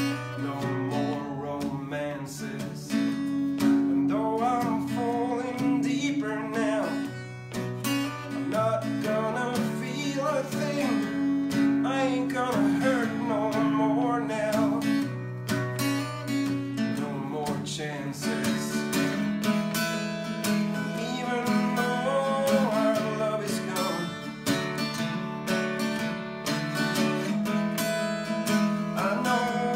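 Acoustic guitar strummed steadily in chords, with a man singing a melody over it in stretches.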